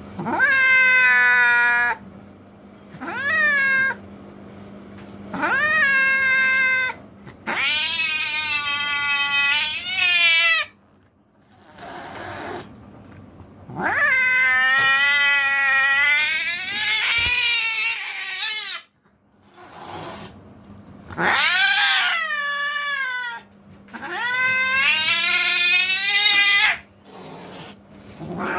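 Domestic cat yowling in long, drawn-out, wavering calls, about seven of them, each one to four seconds long with short pauses between: angry caterwauling.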